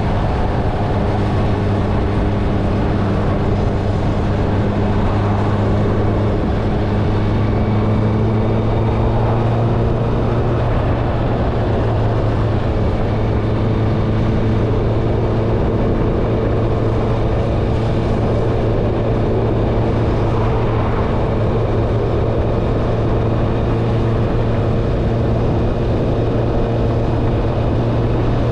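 Honda CBR650R's inline-four engine with an Akrapovic exhaust running steadily while the motorcycle cruises, its engine note holding a nearly constant pitch over a rushing noise.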